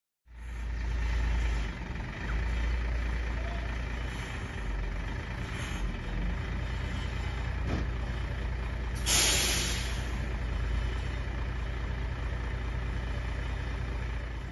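Loaded flatbed truck's diesel engine idling with a steady low rumble, and a sharp hiss from its air brakes about nine seconds in, lasting about a second.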